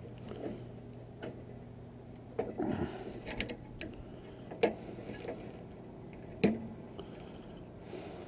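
Metal parts of a brass water-heater valve clicking and knocking as they are worked apart by hand. There are a handful of scattered sharp knocks, with a short cluster of them a few seconds in.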